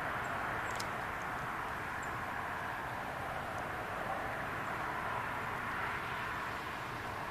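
Steady outdoor background noise, an even hiss-like wash, with a couple of faint clicks about a second in.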